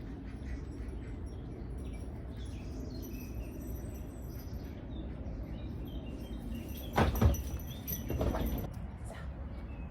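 Small birds chirping faintly over a low, steady background noise, broken by two short, loud noises about seven and eight seconds in.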